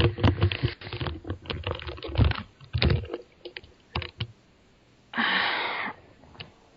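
Typing on a computer keyboard: a run of irregular key clicks that stops about four seconds in. It is followed by a short rush of noise lasting about a second near the end.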